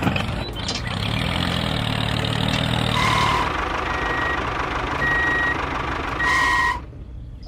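Vehicle engine running, with a reversing beeper sounding about once a second from the middle on. The sound cuts off suddenly near the end.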